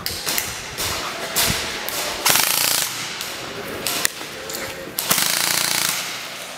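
Airsoft guns firing in rapid full-auto bursts, with two longer bursts about two and five seconds in and shorter shots between them.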